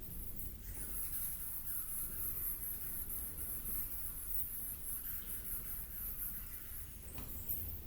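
Ambient wild soundscape: a steady, high-pitched, rapidly pulsing insect chorus over a low rumble, with faint short chirps in between and a single brief click shortly before the end.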